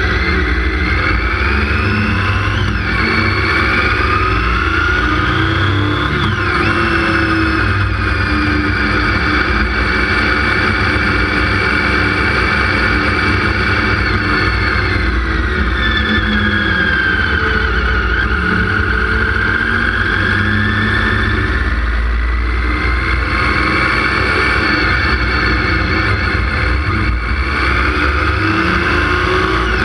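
Motorcycle engine running on the move, its pitch climbing with the revs and dropping sharply twice in the first several seconds at gear changes. Then it sinks slowly and climbs again, with heavy low wind rumble on the bike-mounted camera's microphone.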